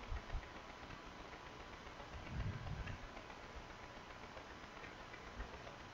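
Faint room tone and microphone hiss, with a soft low bump near the start and a brief low rumble about two and a half seconds in.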